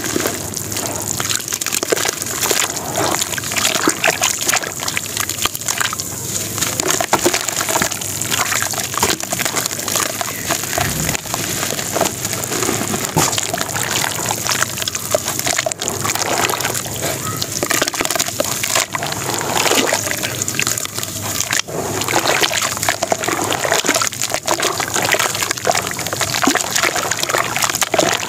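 Hands crumbling dry sand-cement lumps into a basin of water and kneading them into a slurry: continuous gritty crackling mixed with wet sloshing.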